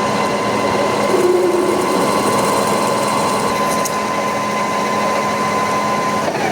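CNC milling machine cutting metal: a steady mechanical run with a constant whine that stops shortly before the end.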